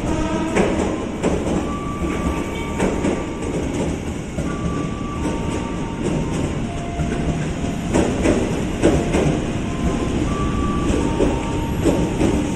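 KRL Commuter Line electric multiple unit running past close by: a steady rumble of steel wheels on rail, with irregular sharp clacks as the wheels cross rail joints and a few short thin high tones.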